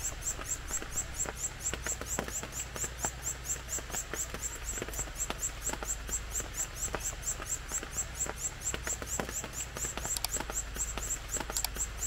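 Red-eared parrotfinch nestlings begging from the nest as the adult feeds them: a rapid, steady train of thin, high-pitched chirps, about five a second.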